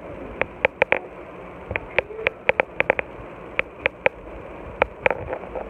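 Irregular sharp clicks and taps, more than a dozen, over a steady hiss, as of plastic toys being handled and knocked together.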